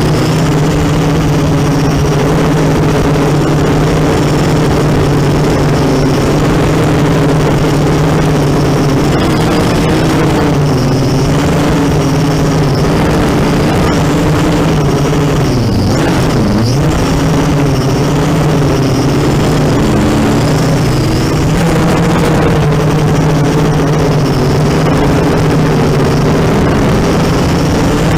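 Racing quadcopter's brushless motors and propellers buzzing in flight. The pitch wavers with throttle, and about 16 seconds in it drops sharply and climbs straight back up.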